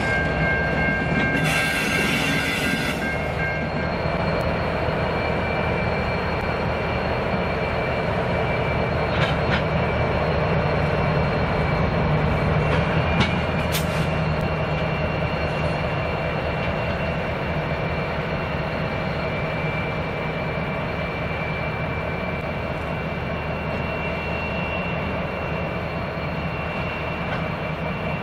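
Genesee & Wyoming Australia diesel locomotives running steadily as the grain train moves slowly, with high-pitched wheel squeal at times and a few sharp clanks around the middle.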